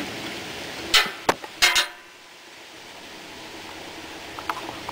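Steel wrench clinking against metal at a garden tractor's oil drain fitting while the drain plug is being worked loose: a few sharp clinks between one and two seconds in, then small ticks near the end.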